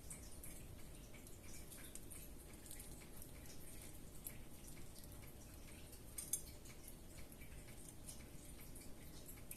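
Faint, scattered small clicks and taps of hands and utensils at work preparing food, with one sharper click about six seconds in.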